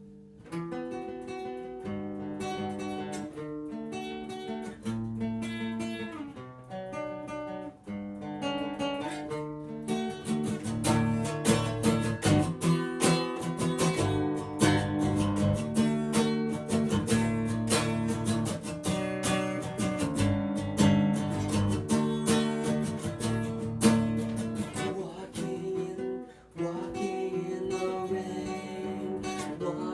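Acoustic guitar playing a song's introduction. Single picked notes for about the first ten seconds give way to fuller strummed chords, which ease back near the end.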